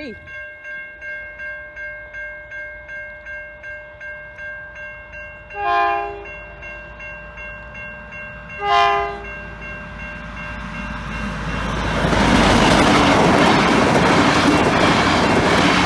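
Level-crossing bells ringing, about two strikes a second. The XPT diesel passenger train sounds its horn in two short blasts about six and nine seconds in, then rushes past at speed, its noise rising from about ten seconds in and drowning out the bells.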